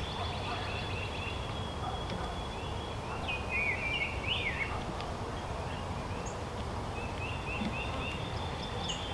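Outdoor ambience: a steady low background noise with songbirds calling in short chirping phrases, about three to four seconds in and again near the end.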